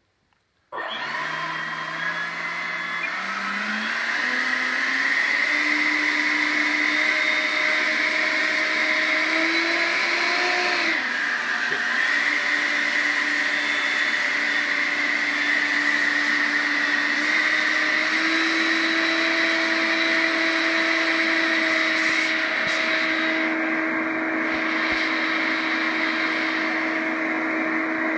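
90 mm electric ducted fan of a J-35 Draken scale jet model running up on a stand: it starts about a second in with a whine over a strong rush of air, the pitch climbing in steps as the throttle is advanced. It dips briefly about halfway through, then holds high and steady, stepping up once more.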